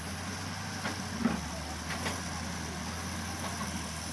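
Steady low drone of heavy diesel machinery running, the wheel excavator and tractor at work, with a few short sharp knocks about one and two seconds in.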